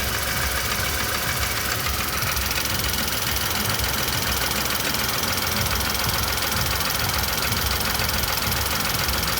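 Car engine running with a persistent knock that has not gone away after the drive belt was re-fitted.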